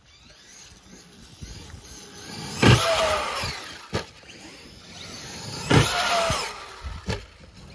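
Traxxas E-Revo 2.0 RC truck's electric motor and drivetrain whining in two hard throttle bursts about three seconds apart, each whine rising and falling in pitch. Sharp knocks of the truck hitting the ground come between and with them.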